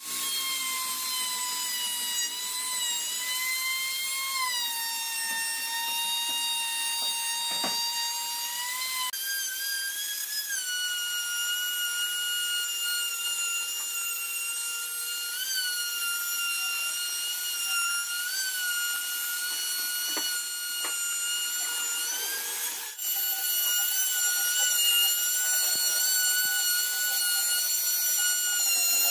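Electric plunge router running with a steady high-pitched whine while it cuts along the edge of a pine board. The pitch sags briefly as the bit bites into the wood and shifts to a new level a few times.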